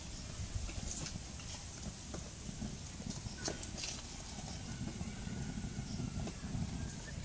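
Freshly lit fire burning in a clay mud stove, an irregular low rumble with a few scattered crackles.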